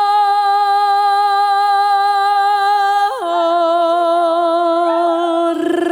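A woman's solo singing voice sustains a long note on the word "rebozo" with vibrato, stepping down to a lower held note about three seconds in. Only faint accompaniment sounds under it.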